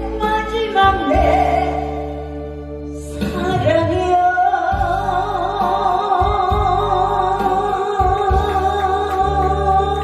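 A woman singing live into a handheld microphone over music with a steady bass. From about three seconds in she holds long notes with a wavering vibrato.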